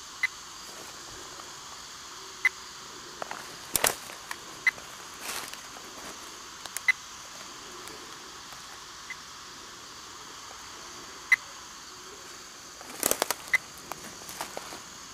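Radio-telemetry receiver giving short, evenly spaced beeps about every two seconds as it picks up the pulse of the snake's implanted transmitter, over a steady background of insects. A few sharp crackles break in, the loudest about four seconds in and near the end.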